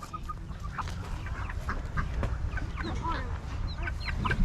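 Caged chickens clucking: many short, scattered calls from several birds at once, over a steady low rumble.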